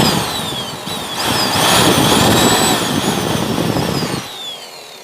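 Vacuum cleaner motor running loud with its post-motor filter opened to blow the dust out, a high whine rising and falling over the rush of air. About four seconds in it is switched off and the whine winds down.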